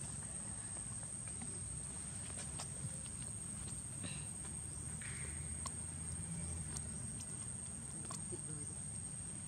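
Quiet outdoor ambience: a steady high-pitched insect drone over a low rumble, with scattered small clicks and two faint chirps about four and five seconds in.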